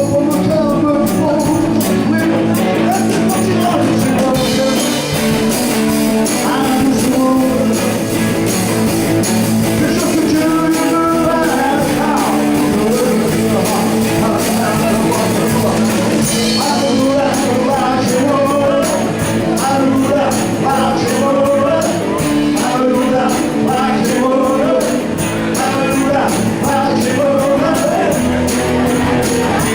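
A band playing a rock-and-roll style song with guitar and singing, to a steady beat.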